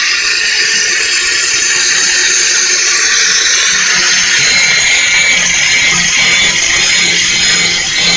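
4.5-inch Chicago heavy-duty angle grinder running with its disc grinding against metal: a steady, high-pitched grinding noise.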